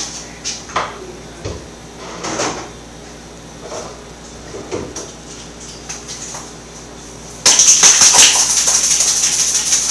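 Light knocks of jars and bottles being handled on a kitchen shelf. About seven and a half seconds in, a loud, rapid rattling of a small handheld container starts suddenly and keeps going.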